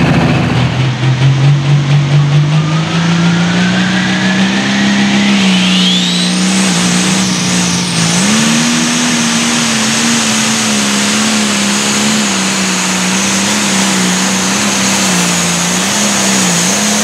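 Case IH MX 200 limited pro stock pulling tractor's turbocharged diesel engine winding up under full load, its turbo whine rising steeply over the first several seconds to a steady high scream. The engine then runs flat out, its note wavering slightly, with a short dip and rise near the end.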